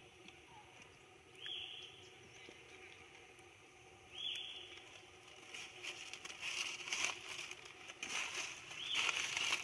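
A short, high whistled call, one arching note, repeats three times a few seconds apart over outdoor background noise. From about halfway through, irregular rustling and crackling grows louder and becomes the loudest sound.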